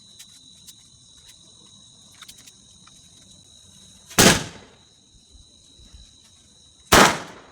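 Two loud firecracker bangs about three seconds apart, from 'two sound' crackers set off with a match, each dying away quickly. Crickets chirp steadily underneath.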